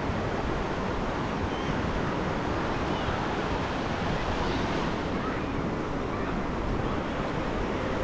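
Small Gulf of Mexico surf breaking and washing up the beach, a steady, even rush of waves.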